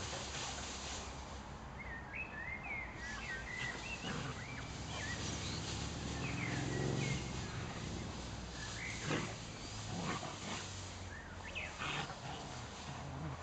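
Outdoor animal sounds over a steady low background: short high chirps a couple of seconds in, then a low drawn-out pitched sound that rises and falls for a few seconds in the middle, and several brief rustles or knocks in the second half.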